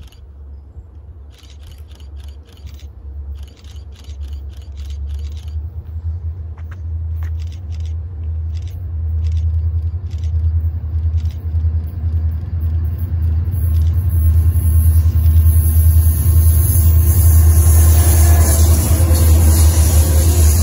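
Three EMD GP40-2 diesel locomotives, two GP40-2LWs and a GP40-2R, approaching and passing at speed, with their deep engine rumble growing steadily louder. About two-thirds of the way in, a hiss of wheels and rail noise joins as the locomotives come alongside.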